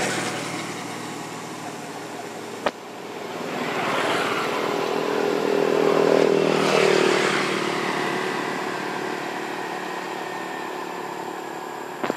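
A motor vehicle driving past: its engine grows louder to a peak about halfway through, drops in pitch as it passes, then slowly fades. A single sharp click comes a little before three seconds in.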